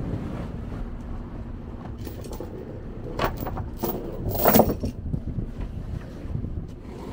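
Low steady rumble of a boat underway, with a few sharp clatters and scrapes of gear being handled about halfway through, the loudest just past the middle.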